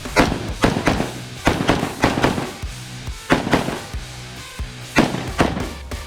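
Gunshots during a two-gun match stage run: about a dozen sharp shots, mostly fired in quick pairs with short pauses between the groups. Background music plays under them.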